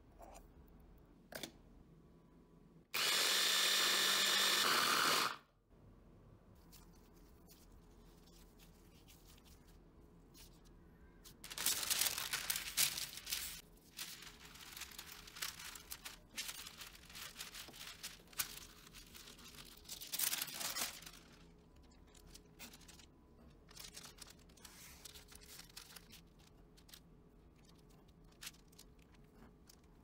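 Electric mini food chopper running for about two seconds a few seconds in, blending the oatmeal, almond and tofu mix with oil. Later, crinkling and rubbing of baking paper as the dough is pressed and rolled flat with a wooden rolling pin, in two louder stretches, with small scattered clicks and rubs between.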